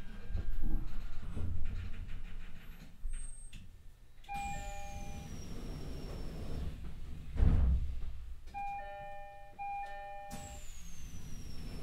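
E129 series train standing at a station. A door chime of several short steady tones rings about four seconds in and twice more near the end, each onset of chiming joined by a hiss with a faint falling whine, with a heavy thump in between.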